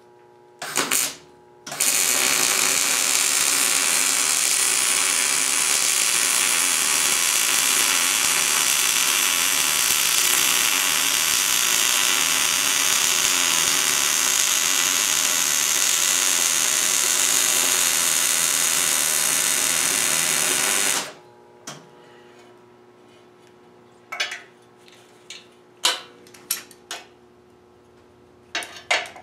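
Electric arc welding: after a short first strike, the arc crackles steadily for about nineteen seconds and then cuts off. Near the end come a few sharp metallic clicks and taps.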